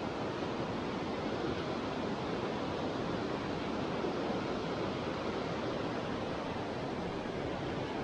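Steady rushing of a river's flowing water, an even wash of sound with no separate events.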